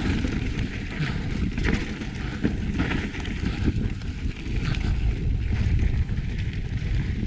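Mountain bike riding down a dry, rocky dirt trail: the tyres rumble over dirt and stones, and the bike clatters with frequent short knocks over the bumps.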